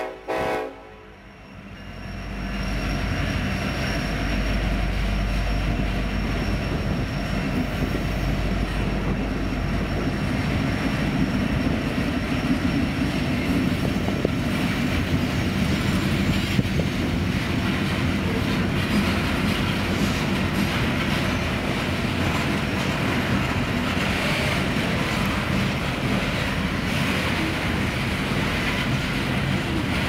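The horn of a BNSF SD70ACe locomotive sounds its last chord and cuts off within the first second. After a brief lull, a loaded coal train's hopper cars roll past in a steady rumble with wheel clatter over the rail joints, deepest in the first few seconds as the trailing locomotive passes.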